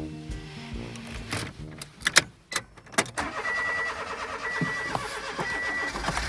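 Car engine being started off a supercapacitor jump starter: a few sharp clicks, then the engine turning over and running. A beep sounds about once a second.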